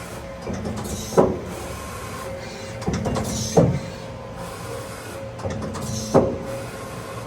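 Mori Seiki Frontier L-II CNC lathe running a repeating cycle over a steady hum: three times, about two and a half seconds apart, a short whir builds and ends in a sharp clunk.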